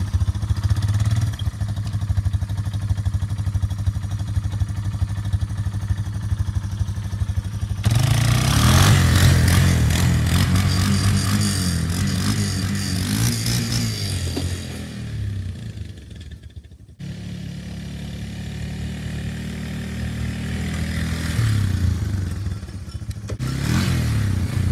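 ATV engine running just after a cold start. It idles steadily at first, then runs louder and higher as the quad is ridden off across the yard. The engine sound drops away sharply about two-thirds through, then builds again and swells near the end as the ATV passes close by.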